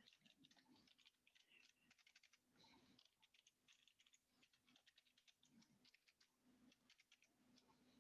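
Faint computer keyboard typing: quick, irregular key taps while code is being entered.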